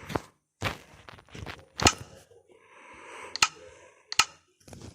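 A handful of sharp clicks and knocks at uneven intervals, with short bursts of rustling between them, like objects being handled.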